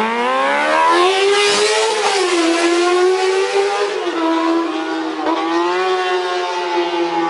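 Motorcycle engine revving, climbing steadily in pitch for about two seconds, then running on at high revs with a couple of small dips in pitch.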